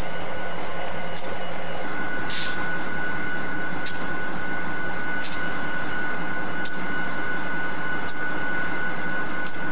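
Diesel locomotives running, a steady heavy drone, with a thin steady whine that comes in about two seconds in and a few sharp metallic clanks.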